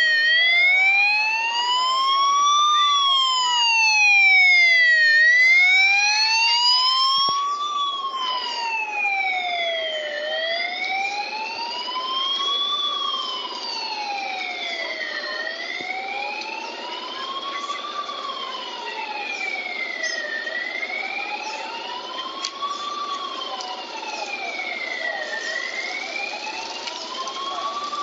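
Police escort siren wailing, its pitch rising and falling slowly about every five seconds. A second siren overlaps during the first several seconds, then one carries on a little quieter.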